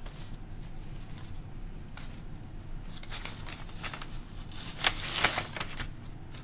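Paper being handled: envelopes, photos and cards shuffled and slid, with a few sharper rustles about five seconds in.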